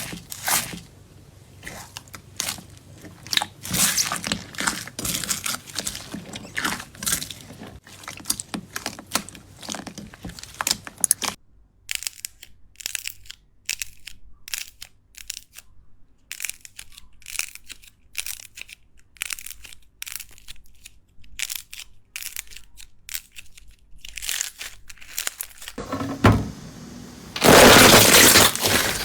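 Slime being squeezed and pressed by hand, crunching and crackling: dense crackles for about the first eleven seconds, then sparser clicks and pops, with a loud rush of noise near the end.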